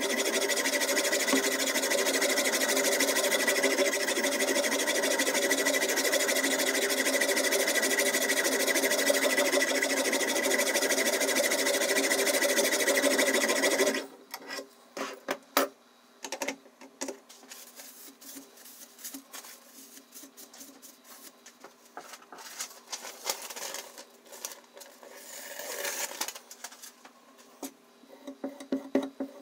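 Diamond whetstone of a guided knife sharpener worked continuously along a steel blade: a steady rasping that stops abruptly about halfway through. Then light clicks of handling the sharpener, and a short rub near the end as a stone is drawn over the blade by hand.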